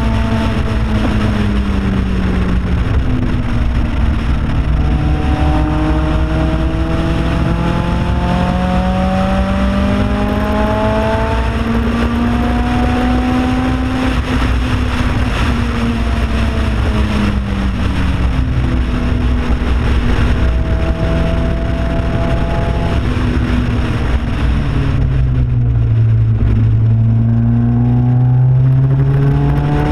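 Car engine at full effort on a track lap, heard from a camera on the outside of the car: revs climbing and falling repeatedly through the corners and straights, with steady road and wind rumble underneath. About 25 seconds in the revs drop low and hold, then climb again near the end.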